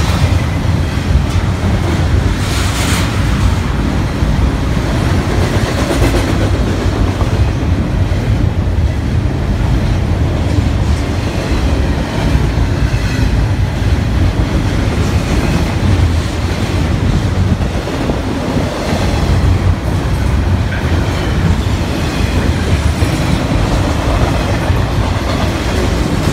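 Cars of a BNSF intermodal freight train, carrying double-stacked containers and trailers, rolling past on the near track: a steady loud rumble and clatter of steel wheels on the rails that keeps on without let-up.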